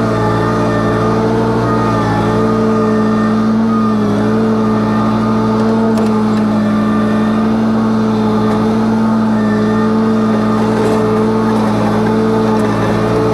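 An engine running steadily at a constant load, its pitch dipping and rising slightly every few seconds.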